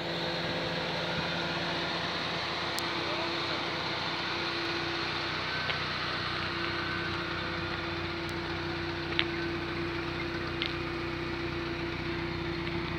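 1989 Chrysler LeBaron GTC's turbocharged 2.2-litre four-cylinder idling steadily, with a few faint clicks here and there.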